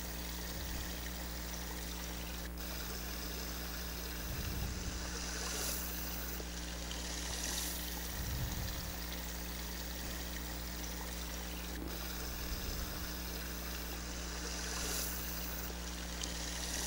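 A small stream of water running over stony ground, a steady trickle, with a few brief low rumbles.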